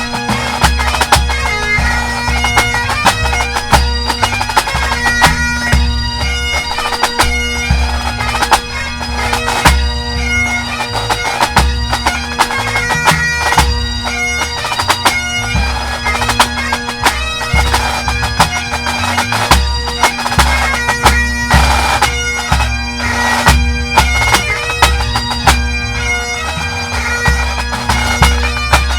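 Pipe band playing a lively tune: Great Highland bagpipes chanting a melody over their steady drone, with snare drums rattling sharp strokes and a bass drum beating underneath.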